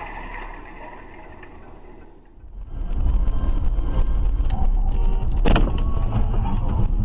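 Muffled dashcam audio that fades out. Then, after a cut, a car moving on the road is heard from inside: a steady low rumble of road and engine noise with scattered small clicks, and one sharp bang about five and a half seconds in.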